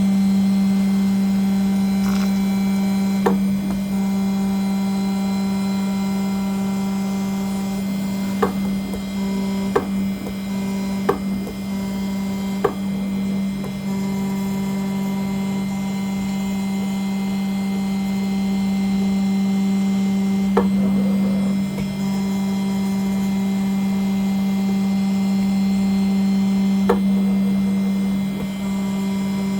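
CNC engraving machine running while it engraves an aluminium nameplate: a steady, unchanging hum, broken by a handful of sharp ticks at irregular intervals.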